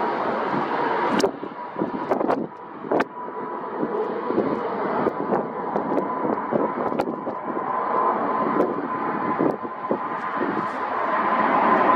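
Jet airliner engines running: a steady rushing roar with a thin whine in it, growing louder near the end. A few sharp clicks come in the first few seconds and once more about midway.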